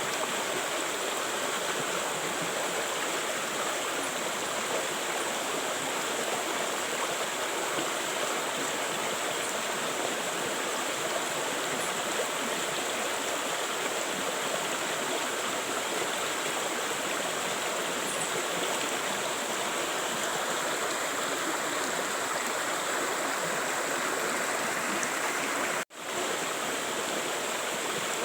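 River water flowing and rushing steadily over rocks. Near the end it cuts out for a moment and comes straight back.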